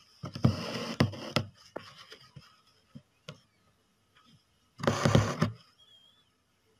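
Embroidery thread being drawn through fabric stretched taut in a hoop while back-stitching a leaf outline: two scratchy pulls, one about a second long just after the start and a shorter one about five seconds in, with a few short clicks between.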